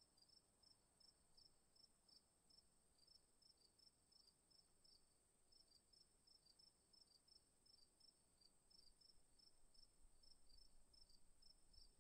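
Faint night insects, crickets: a steady high-pitched trill with short chirps over it, about three a second. Faint low rumbling comes in near the end.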